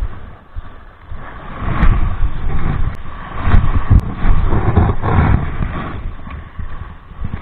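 Wind buffeting the microphone in gusts, strongest through the middle, with a few faint sharp clicks.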